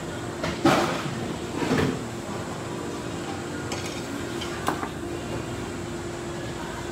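Tableware clattering twice, about a second apart, then a single sharp knock a few seconds later, over a steady background hum.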